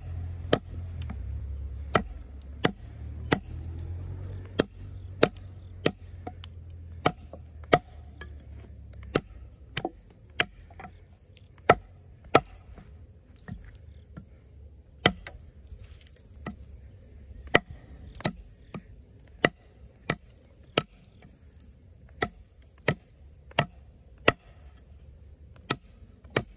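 Extrema Ratio Tuscan fixed-blade knife chopping into wood: a long run of sharp strikes at an uneven pace of roughly one or two a second, with a short pause about halfway through. A steady high insect chirring runs underneath.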